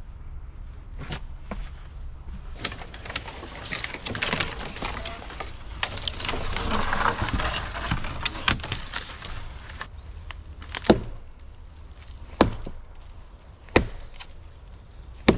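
Dead wood and brush crackling and snapping as dry branches are pulled and broken, a dense run of crackling for several seconds. Then come four sharp single cracks, about a second and a half apart.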